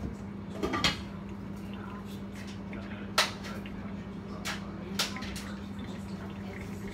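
Kitchen clatter of pots and utensils at the stove: a few knocks just under a second in, then sharp clinks about three and five seconds in, the one at three seconds the loudest, over a steady low hum.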